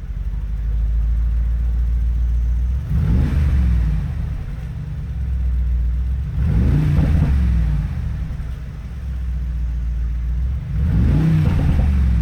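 Mercedes-AMG G63's twin-turbo V8 exhaust idling with a low rumble and revved three times, each rev rising and falling back to idle.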